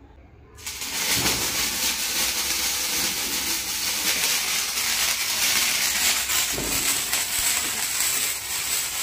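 A small sparking ground firework catches about half a second in and sprays sparks with a steady hiss that keeps going without letting up.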